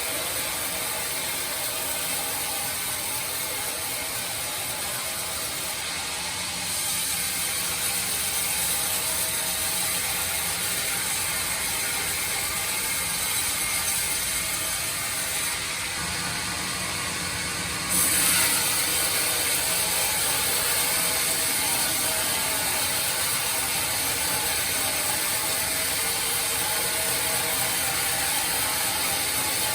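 Band sawmill running and cutting through wood, a steady mechanical noise with a strong high hiss that gets louder about seven seconds in and again about eighteen seconds in.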